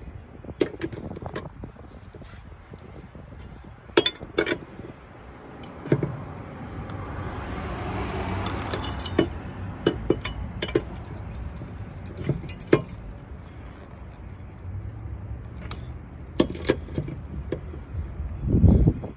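Scattered sharp metallic clicks and clinks of a wrench working the lug nuts as they are tightened on a spare wheel, with a longer rustling noise around the middle and a low thump near the end.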